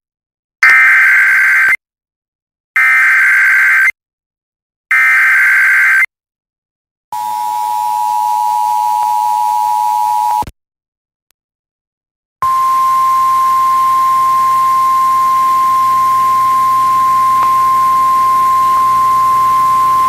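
Emergency Alert System tones from an FM radio broadcast. Three one-second bursts of the SAME digital header's warbling data tones, then the two-tone attention signal for about three seconds, a two-second pause, and a long steady single tone near 1 kHz: the weather service alert tone that comes before a spoken tornado warning.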